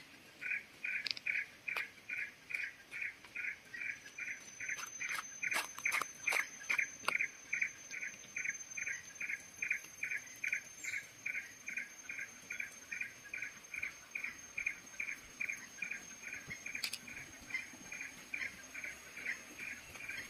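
A rhythmic chirping animal call, repeated evenly about two and a half times a second. A high steady whine joins about four seconds in, and a few sharp clicks fall between about five and seven seconds.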